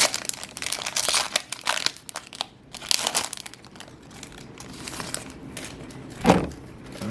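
Foil Yu-Gi-Oh! booster pack wrapper crinkling as it is handled and opened, in quick bursts of crackle that thin out after about three seconds. A single short thump about six seconds in.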